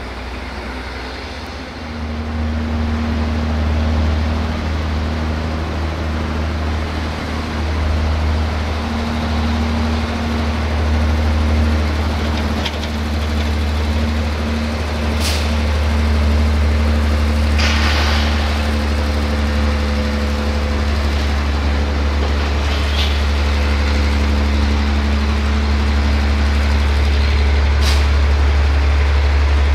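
Heavy Roman Diesel truck engine running steadily at low revs, with a short hiss of released air, typical of an air brake, about 18 seconds in, and a couple of sharp clicks.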